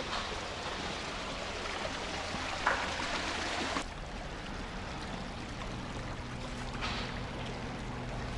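Shallow water running steadily down a narrow concrete canal, an even rushing trickle.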